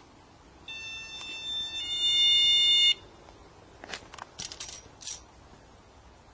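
Electronic alarm tone from a ghost-hunting trigger device with a crystal on top. The steady tone starts about a second in, steps to a second pitch, grows louder and cuts off suddenly after about three seconds. It is followed by a few short scratchy clicks. The investigators take it to mean that something is touching the device where the crystal is.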